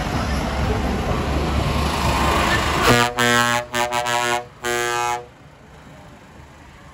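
A vehicle horn, tooted in four quick blasts at one steady pitch about three seconds in, likely from one of the passing parade tractors. Before it, a dense steady rumble of a passing tractor's engine mixed with crowd noise.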